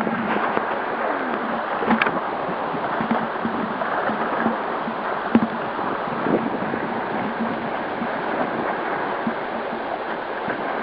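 Choppy wind-driven waves splashing and lapping against a kayak, with wind on the microphone and a few sharp knocks.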